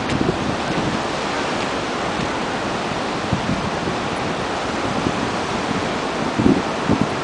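Steady rush of surf mixed with wind buffeting the microphone, with a few brief low gusts near the end.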